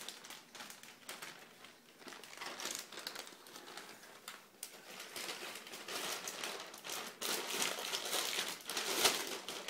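Rustling and crinkling handling noise with scattered small clicks, from the camera being moved about and rubbing against cloth close to its microphone.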